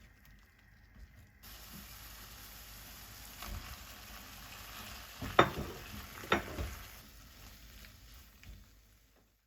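Food sizzling in a hot frying pan, starting about a second and a half in and dying away near the end. A few sharp knocks of a cooking utensil against the pan come through the sizzle, the loudest two about a second apart.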